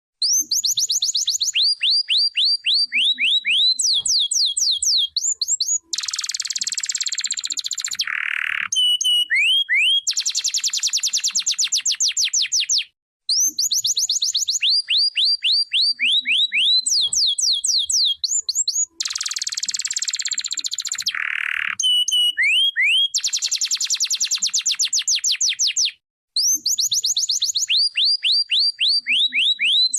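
Domestic canary singing: fast runs of repeated falling whistled notes alternating with dense buzzy rolls, with brief pauses about 13 and 26 seconds in between near-identical song sequences.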